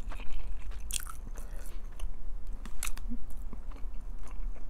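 A person chewing food, with intermittent wet mouth clicks and smacks.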